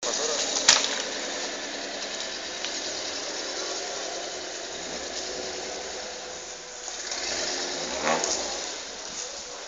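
Off-road vehicle's engine running at a steady low pitch, with a sharp knock under a second in and a brief louder burst about eight seconds in.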